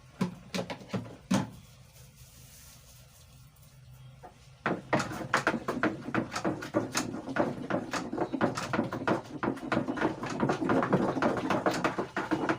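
A few knocks against a container, then from about five seconds in, rapid continuous stirring: a spoon or stick clicking and scraping round a container as an ingredient is mixed into the homemade conditioner liquid.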